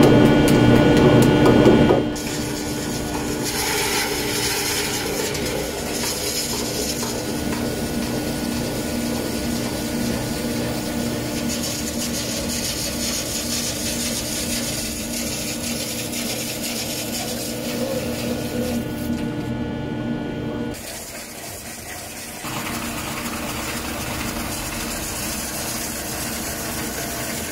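Steel spinning bars scraping and rubbing against a large metal disc turning on a metal-spinning lathe, over the lathe's steady hum. Spinners judge the forming by this tone: a clear sound is good, a muddy one is not. The sound drops briefly about twenty seconds in.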